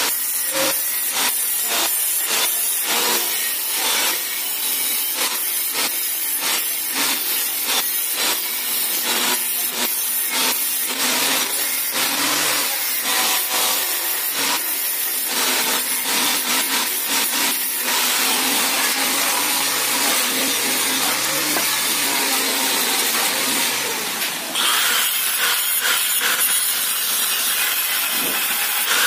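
Electric arc welding on steel: a continuous crackling, hissing arc as the frame's square tubing is welded, with a brief break about 24 seconds in.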